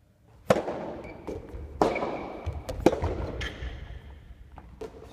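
A quick run of sharp knocks and thuds echoing in a large gym hall, three of them much louder than the rest, with a low rumble under them and a brief squeak.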